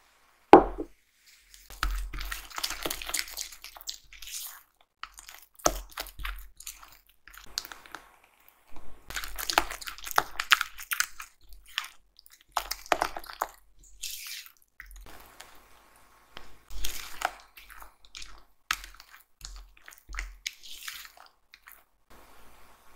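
Silicone spatula stirring and scraping a soft almond-cream batter of creamed butter, sugar and beaten egg around a glass bowl, in irregular wet squishing strokes. A single sharp knock comes about half a second in.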